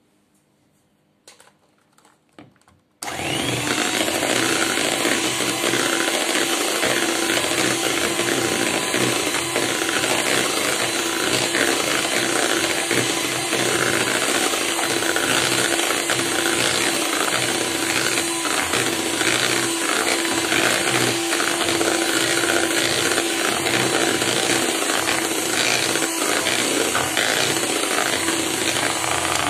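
Electric hand mixer switched on about three seconds in and running steadily with a constant hum, its beaters whipping thick whipped cream in a bowl. This is the last minute of beating, just before the cream is stiff enough for cake decoration.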